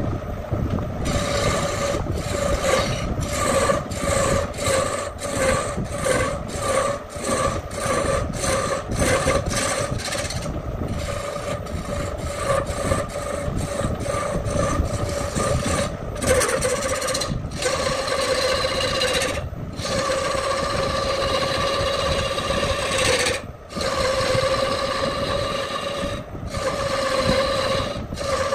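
A hand-held turning tool cutting a spinning wooden disc on a lathe: a scraping, rasping cut with a steady ringing tone under it. For about the first ten seconds it comes in short strokes, about one and a half a second, then in longer continuous cuts.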